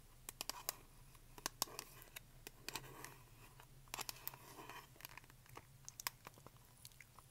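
Long fingernails tapping and scratching on a small black hard case held close to the microphone: irregular sharp clicks with soft scraping between them.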